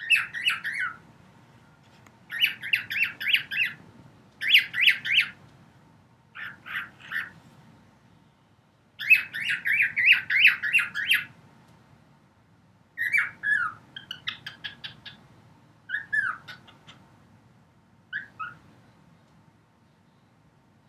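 Male cockatiel singing: about eight bursts of quick, repeated chirping notes with short pauses between them, the later phrases shorter and trailing off.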